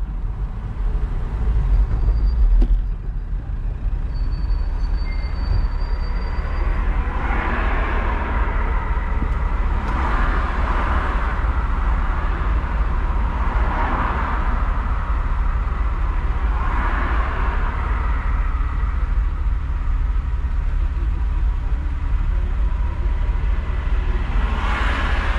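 Car engine running low and steady as the car slows to a stop in queued traffic and idles. Other vehicles pass by several times, each rising and fading.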